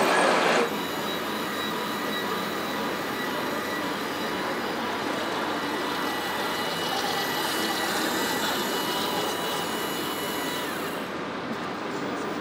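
Steady background noise of a busy exhibition hall, with a faint high steady whine that fades out near the end. A louder first moment cuts off sharply about half a second in.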